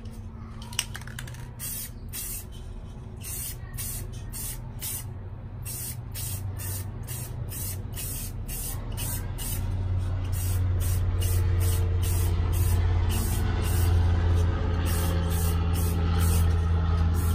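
Aerosol spray-paint can hissing in many short bursts, one to three a second with a few longer ones, as a final coat goes onto a terra cotta pot. A single sharp click comes just under a second in. A low steady hum comes up about ten seconds in and becomes the loudest sound.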